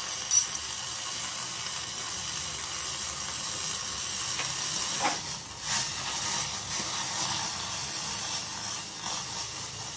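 A spoonful or two of water with spices steaming and sizzling in a hot, dry stainless steel pan, cooked without oil: a steady hiss, with a light knock about half a second in and another about five seconds in.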